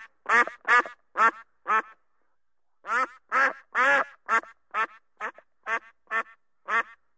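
Duck quacking in a rapid series, about two or three quacks a second. It pauses briefly about two seconds in, then starts a second run whose quacks grow shorter and fainter toward the end.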